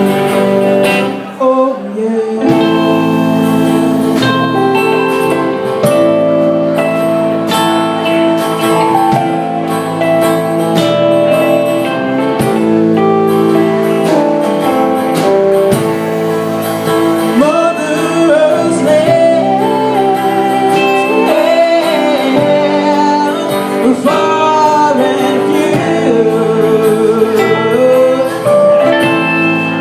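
Live band music: guitar chords ringing under a woman's singing voice, which comes in with bending, held notes about halfway through.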